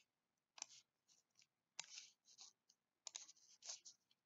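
Near silence broken by about five short, faint clicks and scratches from someone working a computer's pointing device.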